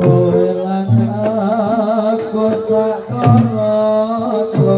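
Loud Javanese jathilan accompaniment music: deep kendang hand-drum strokes under long held melodic tones and a wavering, vibrato-laden melody line.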